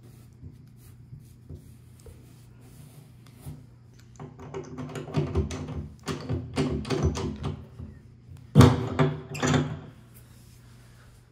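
A chrome pop-up tub drain stopper being turned and pressed into place by hand: a run of small metal clicks and scrapes, then two louder snaps about a second apart, over a low steady hum.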